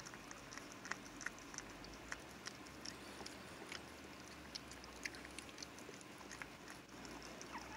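Mother dog licking her newborn puppies: soft wet licking and smacking clicks, with a few faint high squeaks from the puppies, one sliding down in pitch near the end.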